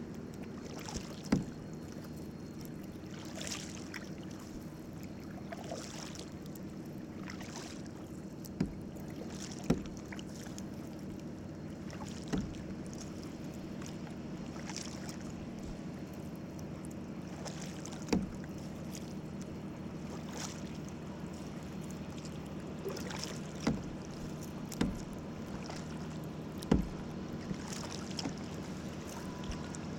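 Canoe being paddled: swishes of paddle strokes through the water every few seconds and irregular sharp knocks of the paddle against the hull, over a steady low hum.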